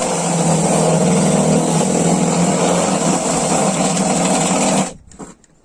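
Cordless drill boring into the floor, its motor running steadily under load, then stopping about five seconds in.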